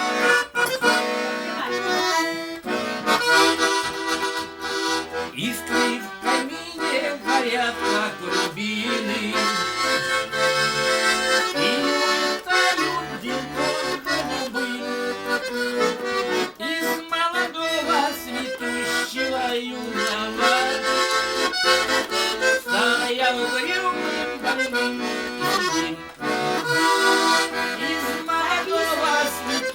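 A garmon, the Russian button accordion, plays a melody in the right hand over steady, repeated bass chords.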